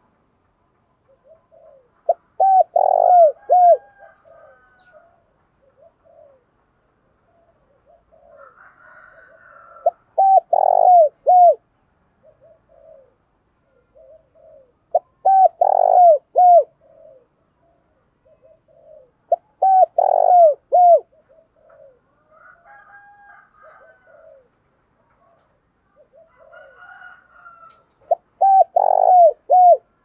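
Spotted dove cooing: five loud phrases of several short coos each, spaced a few seconds apart.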